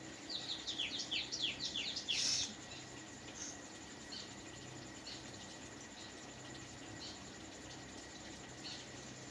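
A bird singing a quick run of about eight falling whistled notes, followed about two seconds in by a short, loud burst of hissing noise, the loudest sound here. A few faint scattered chirps follow over a steady low hum.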